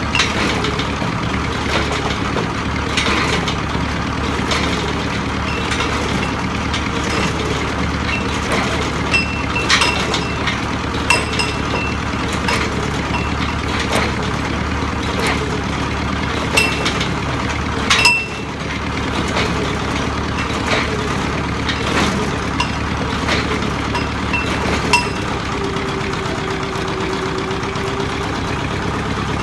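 Engine of a shell-and-auger drilling rig running steadily while the winch hauls the shell up the borehole on its wire rope, with irregular sharp metallic clinks throughout.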